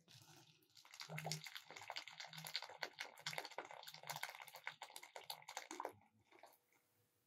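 Hot water pouring from an aluminium kettle into an aluminium bowl, a steady splashing stream that starts about a second in and stops about six seconds in.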